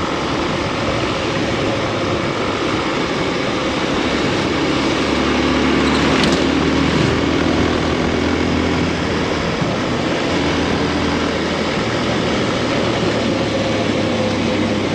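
Motorcycle engine running steadily while riding along a road, under a loud, even rush of wind over the microphone.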